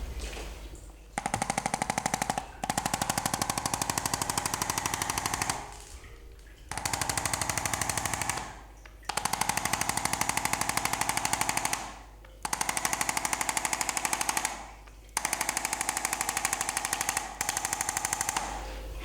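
Handheld electric percussion device buzzing in a fast, even train of taps, switched on in seven bursts of one to three seconds with short pauses between.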